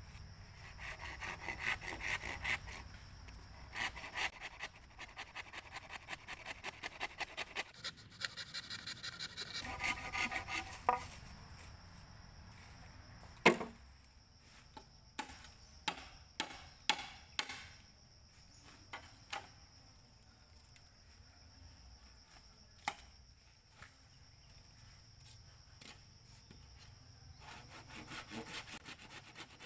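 Hand saw cutting through green bamboo poles, fast back-and-forth strokes at about three a second. Partway through the sawing stops and a few sharp separate knocks follow; the sawing starts again near the end.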